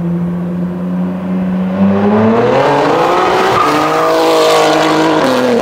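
BMW G80 M3's twin-turbo straight-six, fitted with a full titanium exhaust and catless downpipes, driving past. It holds a steady note, then rises in pitch as the car accelerates about two seconds in, and eases down slightly near the end.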